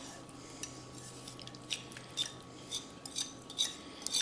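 A utensil clinking and scraping against a bowl in a string of short knocks, roughly one every half second, as softened butter is scooped into it.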